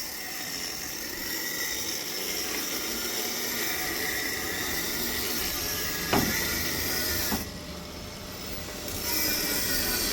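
Steady hissing noise of metal repair work on an excavator bucket, with two sharp knocks about six and seven seconds in and a short dip in the hiss after the second.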